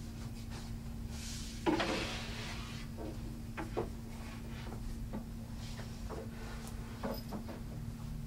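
Hardwood loft-bed rails and slats knocking and clunking as they are set onto the frame's tongues. A scrape and a loud wooden clunk come about two seconds in, followed by a few lighter knocks.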